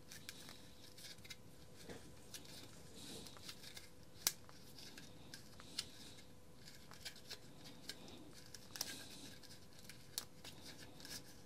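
Trimmer line being wound by hand onto a plastic trimmer-head spool: faint rubbing with scattered small clicks as the line slips onto the spool, one sharper click about four seconds in.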